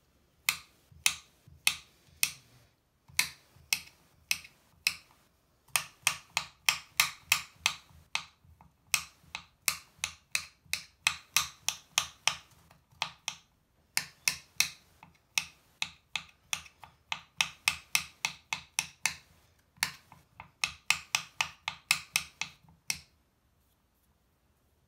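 Kitchen knife chopping a crumbly bubble bar on a cutting board: sharp clicks of the blade striking the board, in quick runs of four or five a second with short pauses between them. The chopping stops near the end.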